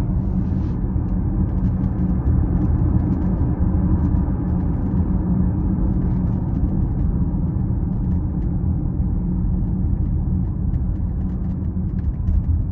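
Steady road and tyre rumble inside the cabin of a moving Tesla Model X, an electric car with no engine sound, with faint short ticks or creaks scattered through it.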